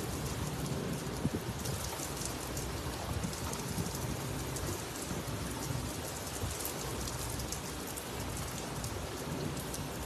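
Heavy rain falling steadily on a wet paved rooftop, with many sharp drop hits close by.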